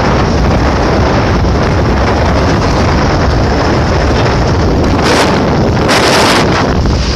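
Wind buffeting the phone's microphone on a moving motorcycle, a loud steady rush with stronger gusts about five and six seconds in.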